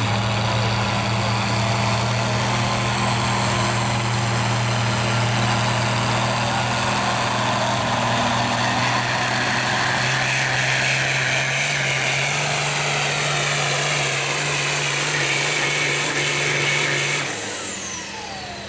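Turbocharged International Harvester pulling tractor's diesel engine running flat out under load as it drags a weight-transfer sled, with a high turbo whine that climbs in pitch about halfway through. Near the end the engine is throttled back suddenly and the whine falls away.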